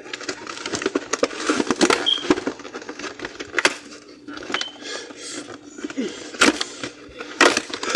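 Drink containers being handled and put into a refrigerator: a busy run of clicks, taps and knocks.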